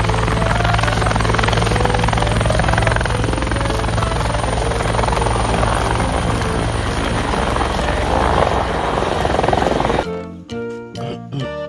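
Helicopter sound: a steady, fast rotor chop over a low engine hum, which cuts off suddenly about ten seconds in as music comes back.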